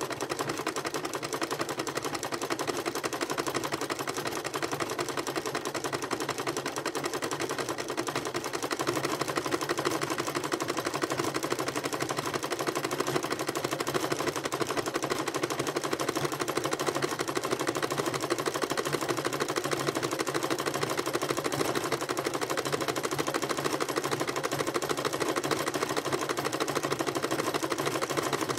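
Electric sewing machine running steadily, its needle stitching a three-step zigzag through a fabric-wrapped rope coil: a rapid, even mechanical clatter that gets a little louder about eight seconds in.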